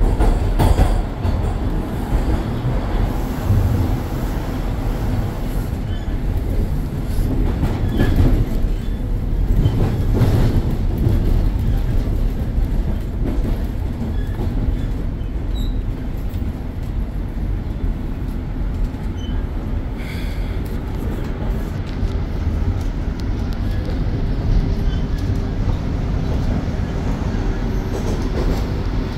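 Toronto subway train (TTC Line 1) running, heard from inside the car: a steady loud rumble of wheels on the rails and the car's running gear, with occasional knocks.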